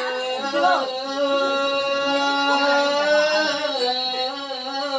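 A voice holding long, drawn-out notes in lượn folk singing, the pitch wavering slightly as each note is sustained.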